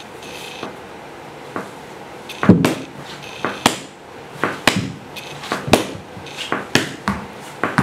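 Human body sound effects made live by dancers: a run of sharp slaps and knocks about once a second, the loudest a heavy thump about two and a half seconds in. Short hissing mouth noises come near the start and in the middle.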